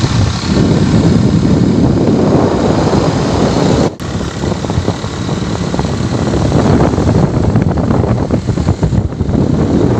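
Engine of the vehicle being ridden, running steadily along a rough dirt road, with wind buffeting the microphone. The sound drops out briefly about four seconds in.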